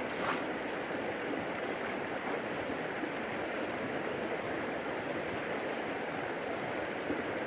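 Creek water rushing steadily over rocks, a constant even noise.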